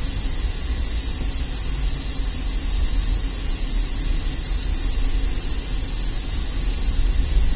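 Steady low rumble of road and tyre noise heard from inside a car moving in slow highway traffic.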